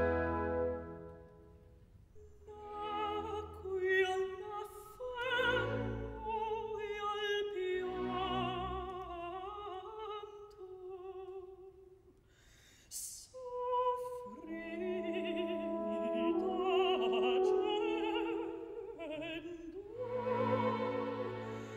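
Operatic singing with orchestra as background music, the voice holding long, wavering notes. The music drops away briefly about twelve seconds in, then comes back.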